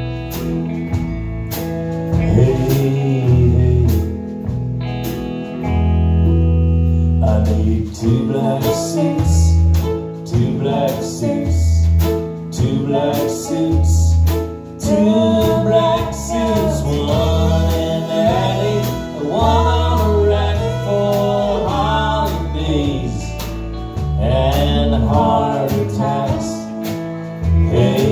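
Live band playing a slow song: electric guitar and bass guitar under a sung vocal, which comes in clearly about seven seconds in.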